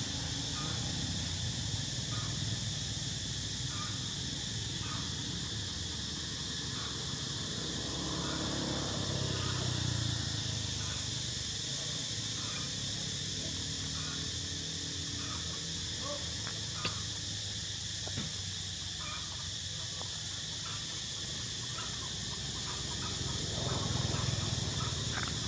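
Outdoor ambience: a steady high drone with short animal calls repeating about once a second, over a low rumble.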